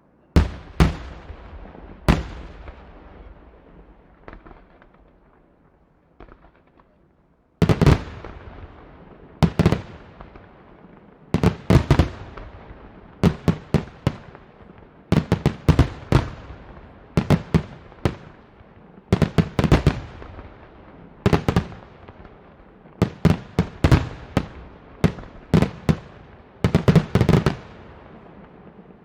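Aerial fireworks shells bursting: loud, sharp bangs, each followed by an echoing tail. Two bangs come in the first two seconds, then a lull of about five seconds, then rapid clusters of bangs follow roughly every second or so.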